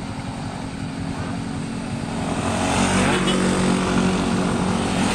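Motor scooter engine running and growing louder from about halfway through as it draws near.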